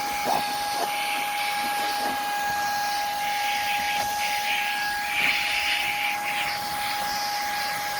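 Shark IZ251 cordless stick vacuum, fitted with a small brush attachment, running steadily on a car's interior with a constant whine over the suction hiss. The hiss grows louder about a second in and again around five seconds in as the nozzle works into the grooves.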